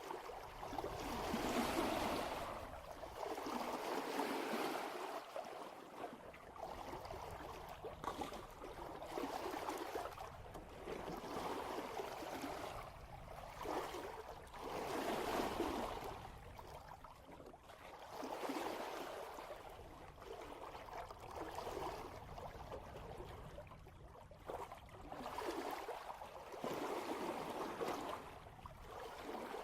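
Water washing and gurgling along the hull of a sailboat under way in light wind, in repeated swells that rise and ease every second or two.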